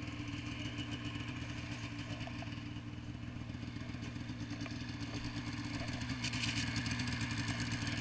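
Snowmobile engine idling steadily.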